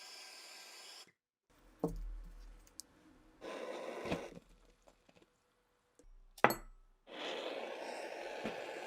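Hand tool work sounds: stretches of rubbing or scraping noise and a couple of sharp knocks, broken by abrupt cuts to silence.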